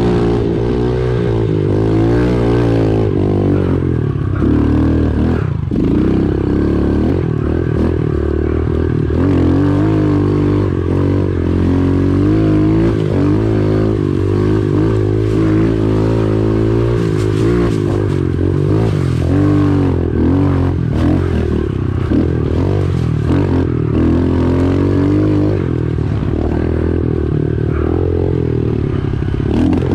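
Pit bike engine revving up and down as it is ridden hard over a rough dirt trail, pitch rising and falling every second or two with throttle and gear changes.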